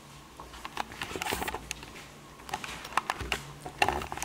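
Irregular clicks, taps and rustling, starting about half a second in: handling noise as the camera is moved about.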